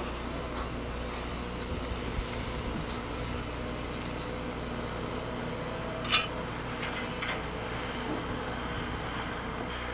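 Steady mechanical hum of running equipment on a jet flight line, with one sharp knock about six seconds in and a few faint ticks after it.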